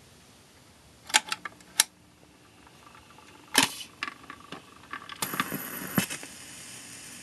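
Panasonic stereo phonograph's fully automatic record changer cycling: a quick run of mechanical clicks, then a louder clunk a few seconds in and more light clicks as the tonearm moves into place. Near the end comes a brief scrape as the stylus sets down, then the steady hiss of the needle in the lead-in groove of a 78 rpm record.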